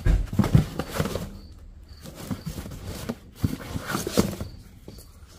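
Hardcover books and cardboard being handled: irregular knocks, slides and rustles as books are lifted out of a cardboard box and set against one another.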